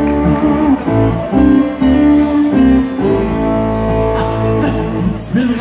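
Live country band playing, led by a pedal steel guitar with electric guitar, bass and drums; sliding steel notes early on give way to a long held chord in the last couple of seconds.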